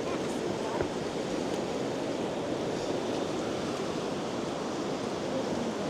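Fast-flowing river water rushing over the rocks of rapids in flood after rain: a steady, even rush.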